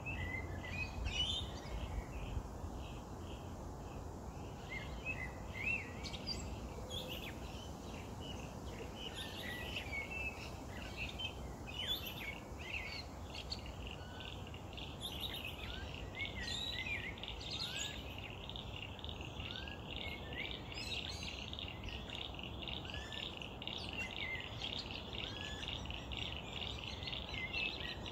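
Birds chirping and calling, many short chirps and whistles overlapping. About halfway through, a fast, steady pulsing trill joins in and carries on.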